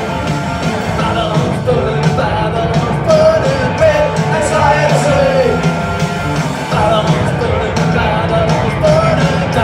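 Live punk rock band playing loud through a venue PA: electric guitars, bass and drums under a sung lead vocal.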